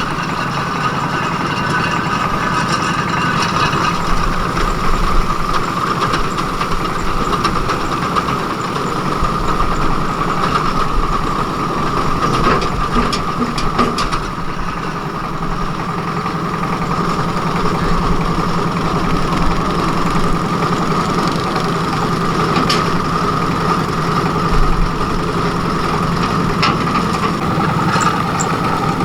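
Heavy engine running steadily, with a constant high whine over its low hum and a few sharp knocks about halfway through.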